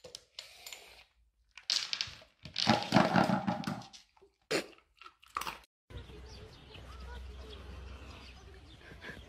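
Dog eating dry kibble from a plastic slow-feeder bowl: several short bursts of crunching and bowl noise, the longest about three seconds in. About six seconds in it gives way to a steady low outdoor rumble.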